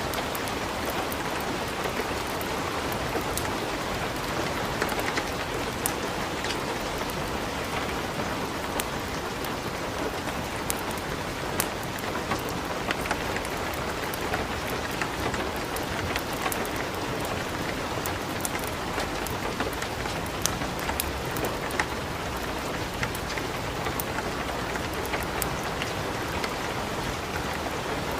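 Steady light rain with scattered sharp crackles from a wood fire burning in a fireplace.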